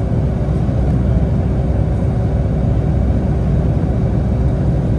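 Cabin noise from a window seat over the wing of a Boeing 757-232 in its climb after takeoff: the Pratt & Whitney PW2037 turbofans at climb thrust and the airflow make a loud, steady rumble with a steady hum above it.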